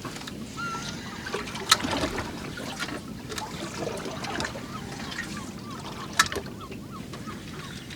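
Water lapping and trickling against the hull of a drifting small boat, with two sharp clicks, the louder one about six seconds in.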